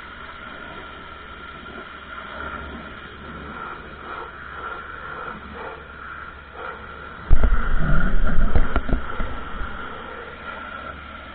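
Ryobi electric pressure washer running, a steady hiss with a thin high whine as it sprays. About seven seconds in, a loud low rumble with a few sharp knocks comes in for about three seconds, then fades.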